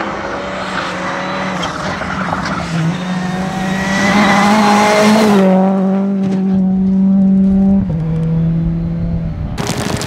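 A rally car's engine is held at high revs as the car approaches and sweeps close past. Its pitch drops sharply about halfway through as it goes by, and falls again a couple of seconds later. Just before the end the sound cuts abruptly to a dense hiss of heavy rain.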